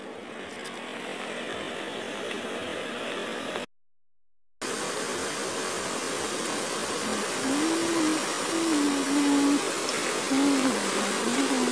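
Brown floodwater rushing over a small weir and down a swollen channel: a steady, noisy rush. It follows a quieter steady hiss and a cut to silence for about a second, a few seconds in.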